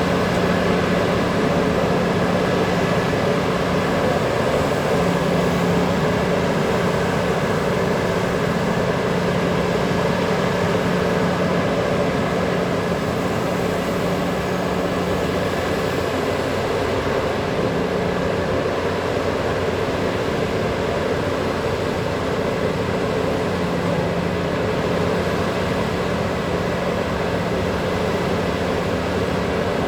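Heavy diesel mining machinery running steadily, a large hydraulic excavator working with a haul truck: a constant engine drone with a low hum whose pitch shifts slightly now and then.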